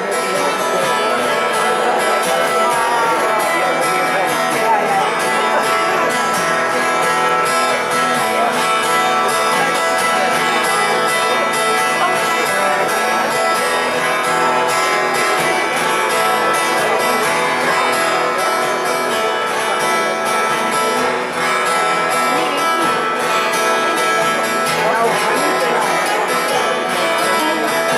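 Live band playing an instrumental passage before the vocals come in, the music steady and full throughout.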